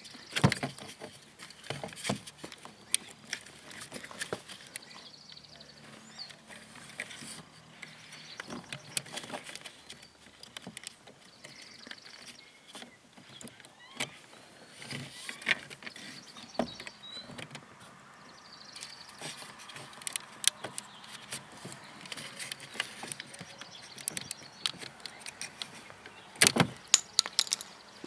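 Small plastic clicks, taps and rattles as wiring-harness connectors are pried with a small screwdriver and worked loose from a GM power window and lock switch bank. A cluster of louder clicks comes near the end.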